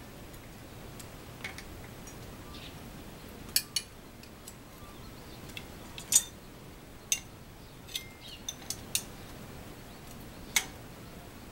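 Flat steel spanner clinking against the axle nut and cone of a bicycle rear hub as it is fitted and worked on, while the hub bearing is adjusted to take out play. There are about ten sharp metallic clicks at irregular intervals, the loudest about six seconds in.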